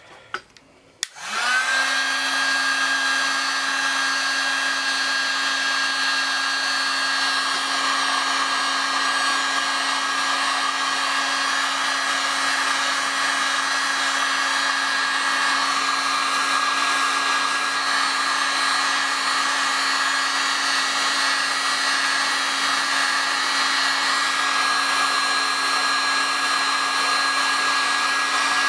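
Electric heat gun switched on about a second in, its fan motor spinning up and then running steadily with a low hum and a high whine as it blows hot air to soften a plastic power-cord end cap.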